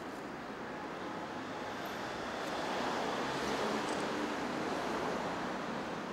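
Outdoor city ambience: a steady hum of street traffic that swells a little midway.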